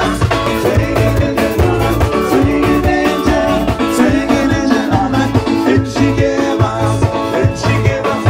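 Upbeat music with a steady beat.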